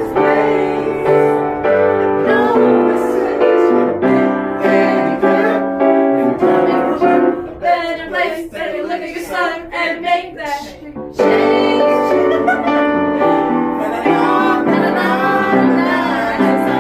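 A song with a singing voice over piano. In the middle the voice holds long notes that waver in pitch, and the accompaniment drops back.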